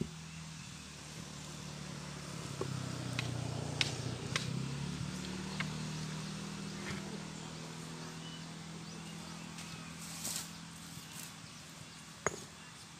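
Loose stone blocks knocking and clinking a few times as they are shifted by hand, with a sharper knock near the end, over a low steady engine drone that swells and shifts in pitch about three to five seconds in.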